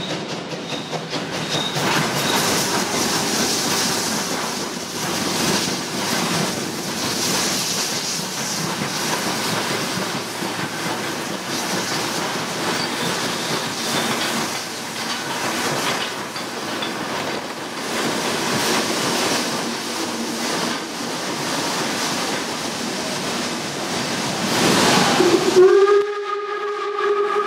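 Train noise with rails clattering and steam hissing, then near the end a steam locomotive's whistle sounds and holds one steady, chord-like tone.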